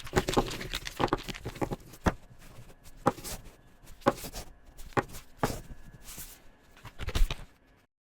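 Felt-tip marker pen coloring on paper: a run of short scratchy strokes back and forth, with a sharp tick now and then, stopping abruptly near the end.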